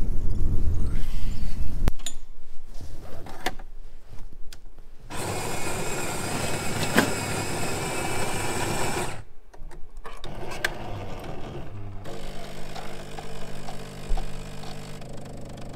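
Jura bean-to-cup coffee machine at work: a loud grinding whirr for about four seconds mid-way, then the pump humming steadily as coffee runs into the cup near the end. Before it, low wind rumble on the microphone for the first two seconds.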